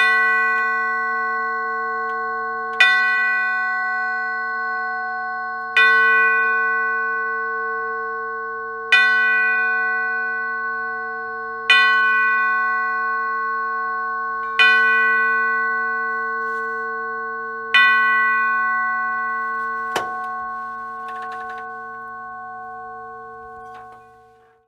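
Church steeple bell tolling, struck seven times about every three seconds, each stroke ringing on and fading before the next. A single sharp knock comes about twenty seconds in, and the ringing then dies away near the end.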